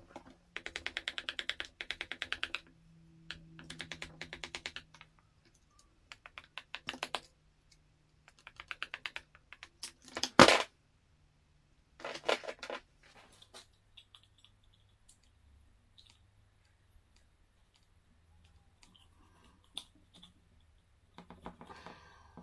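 Hand ratchet clicking in quick bursts, again and again, as screws are worked loose. There is one sharp knock about ten seconds in.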